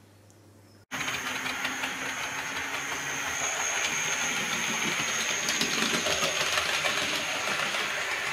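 Model electric multiple unit running along model railway track: a steady whirr of its motor and wheels with a thin high whine, starting suddenly about a second in.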